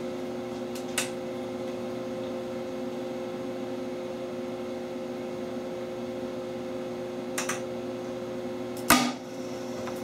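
Steady hum of the rig's electrical equipment, with a faint click about a second in and a single sharp pop near the end: the HHO (hydroxy) gas and air mixture igniting in the PVC burn-rate test tube.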